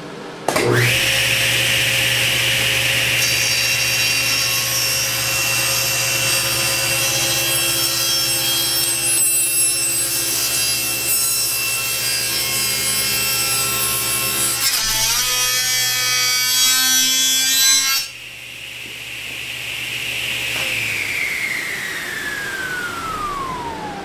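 Table saw starting up and cutting a walnut leg in a taper jig, with steady sawing noise. About 15 seconds in the cut turns rough and chattering as the jig's stop block pulls loose and the wood binds and kicks back. The sound drops sharply about three seconds later, and after the motor is switched off the blade winds down with a long falling whine.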